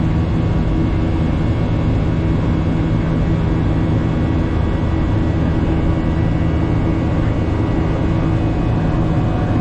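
Steady in-flight cabin noise of a Boeing 737-800 airliner: the constant drone of its CFM56-7B turbofan engines and airflow over the fuselage, with a low steady hum and faint fixed whining tones, unchanging throughout.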